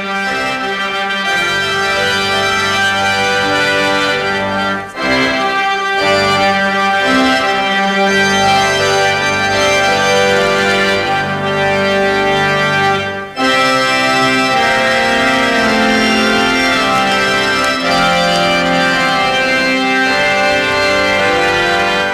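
Organ music playing full, held chords that change every second or so, with two brief breaks, about five seconds in and again a little past the middle.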